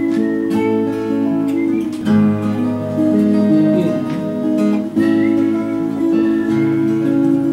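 Two acoustic guitars strummed together, playing the slow introduction of a folk song, with the chords changing about every second or so.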